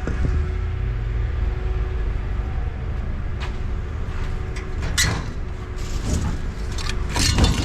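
An engine running steadily with a low rumble, with a few short knocks and clanks about halfway through and near the end.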